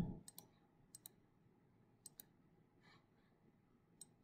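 Faint clicks of a computer mouse button, mostly in quick pairs like double-clicks, a few times over several seconds against quiet room hiss.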